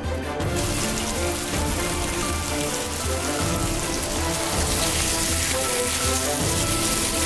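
Sliced mushrooms and minced garlic sizzling in a frying pan, a steady hiss that starts about half a second in, with background music underneath.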